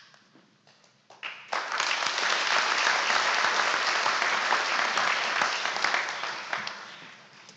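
An audience applauding, starting with a few scattered claps, swelling to full applause about a second and a half in, and dying away near the end.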